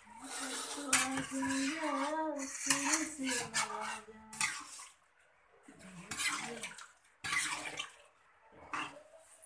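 Steel plates and bowls clinking and scraping against each other as food is handled, in a string of short clatters. A voice is heard in the background during the first few seconds and again briefly later.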